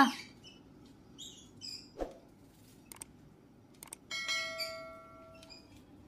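A few short, faint chirps from pet parrots and some small clicks, then about four seconds in a sudden metallic ringing that dies away over about a second.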